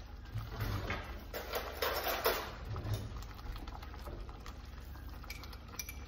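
Thick butter chicken gravy simmering in a pot, bubbling and popping irregularly, over a steady low hum.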